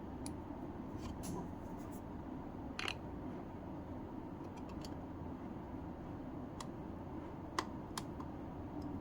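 A few scattered small clicks and taps, as of handling something hard and small, over a steady low background rumble.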